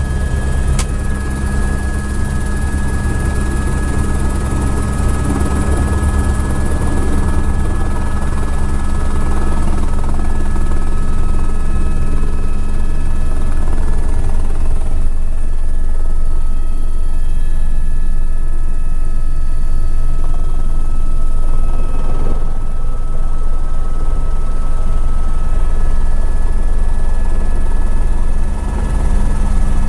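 Eurocopter AS350 B2 Écureuil helicopter running, heard from inside the cockpit: its Arriel turboshaft and rotor give a steady low rotor beat with high, even turbine whine tones above it. A single sharp click about a second in.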